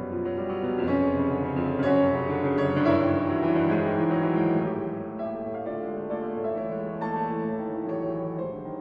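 Soft background piano music: sustained chords with a slow melody.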